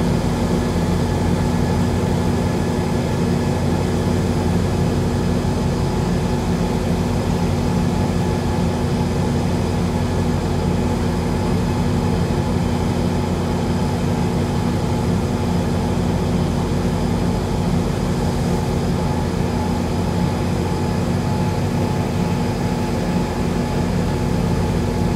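Steady low drone of a towboat's diesel engines running, unchanged throughout.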